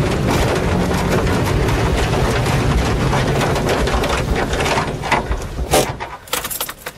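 Car engine running hard as the car ploughs through tall maize, stalks knocking and scraping against the bodywork in a dense rattling noise. About five and a half seconds in the noise drops away, leaving a few sharp knocks.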